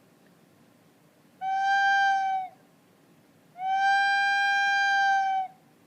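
An owl's hoot played as a sound effect on a musical instrument: two long notes at the same pitch, the second about twice as long as the first, each sagging a little in pitch as it ends.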